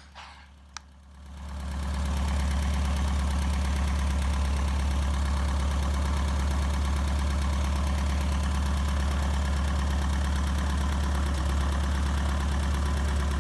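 Van's RV-6A's four-cylinder opposed aircraft engine running steadily at low power, with the cowling off and the propeller turning; it comes up in level over the first second or two. The engine is running smoothly on its first start.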